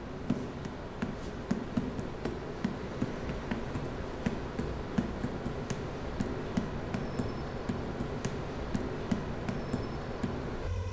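A series of sharp, irregular taps and clicks, about two or three a second, over a steady background noise.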